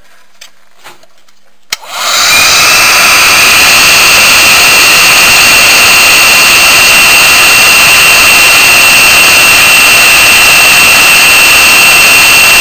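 Black & Decker KX1800 hot air paint stripper switched on with a click about two seconds in, its fan spinning up to a loud, steady rush of air with a high whine on top. It is blowing hot air onto a surface-mount chip to melt the solder and lift it off the board.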